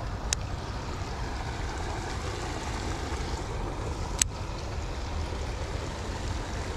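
Wind rumbling on the microphone with a steady hiss, and two short sharp clicks about four seconds apart.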